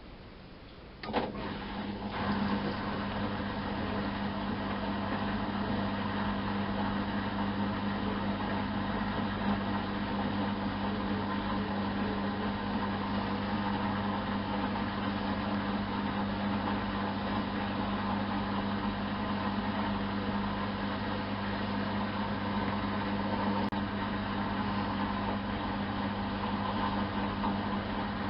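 Miele Softtronic W 204 washing machine starting up with a click about a second in, then running with a steady hum through its Mini wash programme.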